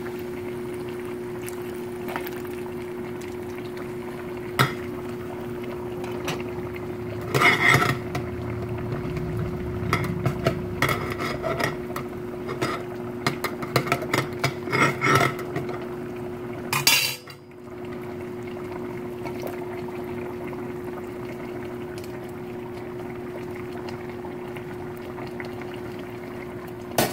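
A metal spoon scraping and clinking against a metal cooking pot as watery rice and kidney beans are stirred, in irregular clusters through the middle, over a steady low hum.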